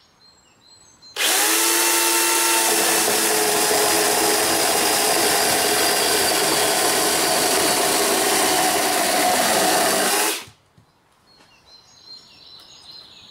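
Electric chainsaw starting about a second in, running briefly at free speed, then cutting through a dry driftwood root for about eight seconds before it stops suddenly.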